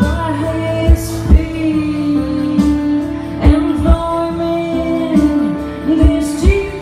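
Live acoustic performance of a folk ballad: a singer holds a long sung note over guitar, with low beats in pairs.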